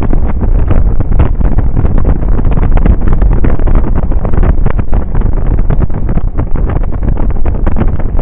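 Loud, steady wind rush buffeting the microphone on a Suzuki Burgman 650 maxi-scooter riding at highway speed, fluttering rapidly and deepest in the bass. The scooter's running and road noise are blended underneath.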